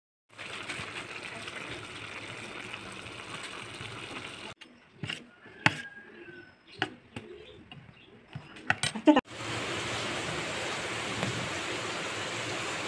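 A steady hiss of a pot boiling on the stove, which cuts off about four and a half seconds in. Then a metal spoon clinks and knocks several times against a steel bowl, and the steady hiss returns about nine seconds in.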